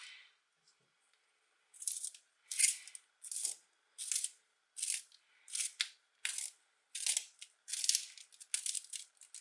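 A Tombow Homo-Graphic B graphite pencil being sharpened by hand: a rhythmic series of about eleven short scraping strokes, a little under two a second, starting about two seconds in, as the blade shaves the wood and graphite.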